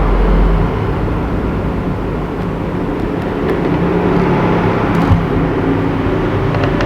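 Steady rumbling background noise with a low hum.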